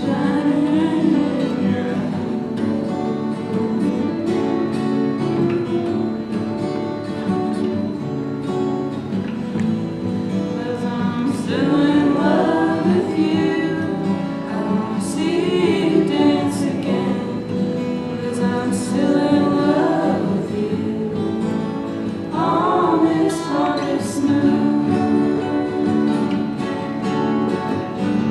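Live singing with strummed acoustic guitar, the voice rising into louder phrases several times.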